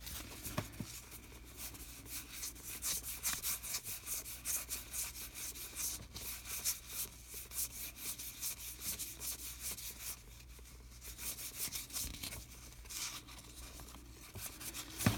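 Baseball trading cards being flicked through one after another in the hand, card sliding against card in a quick run of short papery scrapes that thins out briefly about ten seconds in.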